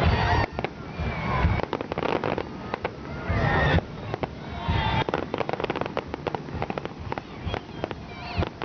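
Fireworks display: dense, rapid crackling and popping throughout, with several deep booms in the first five seconds.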